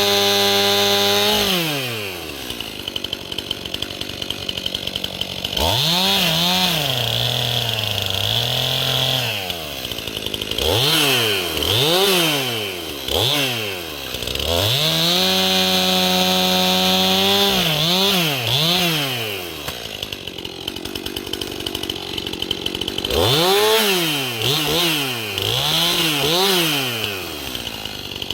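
Two-stroke chainsaw revved with no load: run up and held at full throttle for a second or two at a time, dropped back to idle, and blipped in quick rises and falls several times. It is being free-revved to show how well it winds out.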